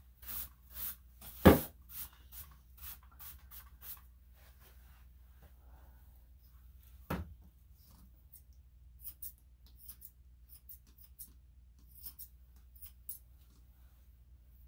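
Quick scratchy strokes of a grooming tool through a long-haired Chihuahua's coat, with a sharp knock about a second and a half in. A second knock comes near the middle, followed by a few faint snips of grooming scissors.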